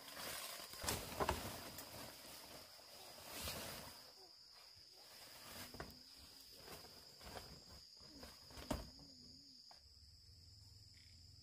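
Steady high-pitched insect trill, with a few sharp knocks scattered through it, two of them close together about a second in.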